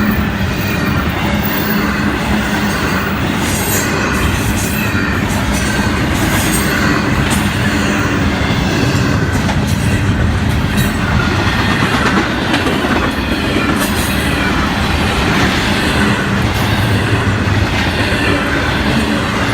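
An intermodal freight train's cars roll past steadily: a continuous rumble and rattle of steel wheels on the rails, with scattered clicks throughout.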